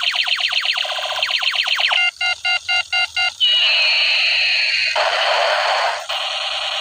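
Electronic gun sound effects. First come rapid falling laser-style zaps, about ten a second for two seconds. Then a run of about five short beeps, then a long falling whistle over a noisy blast, and finally a steady electronic tone.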